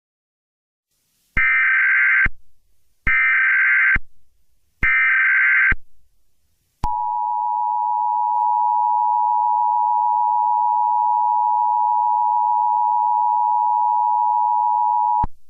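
Emergency Alert System tones: three harsh SAME header data bursts, each about a second long with short gaps between them. The bursts are followed by the two-tone attention signal, held steady for about eight seconds before it cuts off. Together they announce an emergency alert message.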